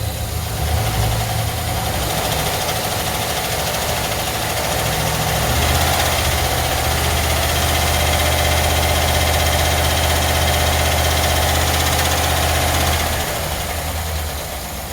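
Chevy van engine running at idle with the weird sound the owner is showing. About six seconds in, it grows louder and a higher-pitched tone joins in; it drops back about thirteen seconds in.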